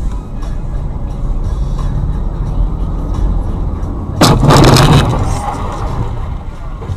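Steady low rumble of a vehicle on the road, then about four seconds in a sudden loud crash lasting under a second, the impact of a car collision.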